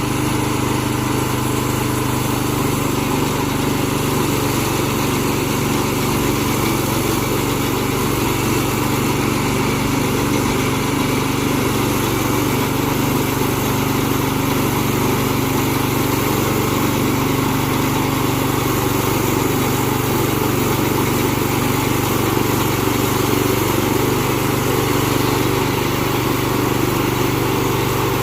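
Small gasoline engine of a portable band sawmill running steadily, a constant engine drone with no let-up.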